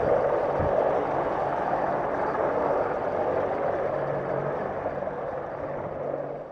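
Apache attack helicopter flying by low, its rotors and turbine engines making a steady drone that slowly grows quieter.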